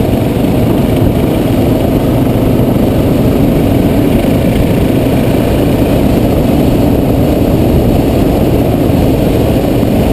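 Dual-sport motorcycle riding along a dirt road at a steady speed, its engine note holding even.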